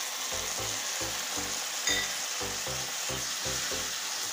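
Onion, tomato and green-chilli masala sizzling in coconut oil in a pan, with tamarind water just poured in, and a wooden spatula stirring it.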